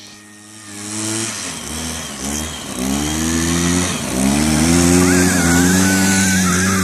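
Arctic Cat Kitty Cat children's snowmobile engine running as it pulls a sled toward the camera, its pitch rising and falling with the throttle and growing louder from about a second in. Near the end a girl riding in the towed sled gives a high, wavering squeal.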